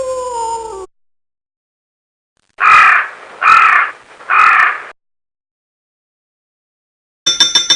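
Three loud, harsh cawing calls in a row, each about half a second long, after a held tone slides down and cuts off just under a second in.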